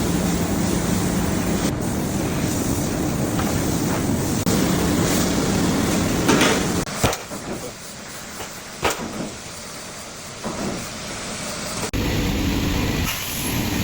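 Steady hum and noise of a CNC press brake and its hydraulic drive. About seven seconds in it drops to a quieter background with a few sharp clicks, and near the end an abrupt cut brings back a louder steady machine noise.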